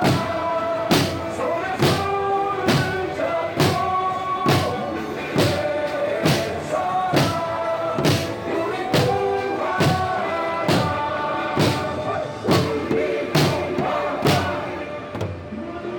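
Drums struck in a steady march beat, a little faster than one stroke a second, under a tune with voices singing along; the drumbeats stop shortly before the end.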